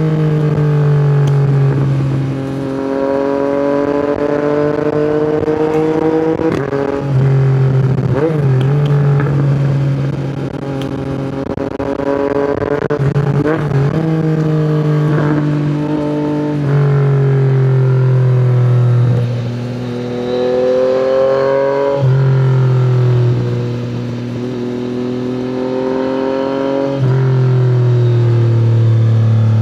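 Yamaha MT-09's inline three-cylinder engine through an Akrapovic exhaust, pulling hard and then easing off again and again, its pitch climbing and dropping back several times.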